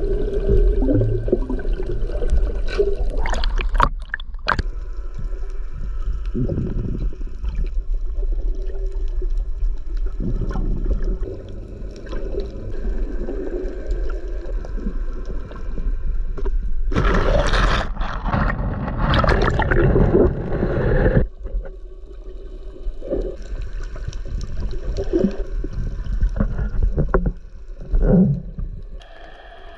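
Muffled underwater water noise picked up by a submerged camera, gurgling and rushing with short bubbly bursts, and a louder rush of water noise about two-thirds of the way through.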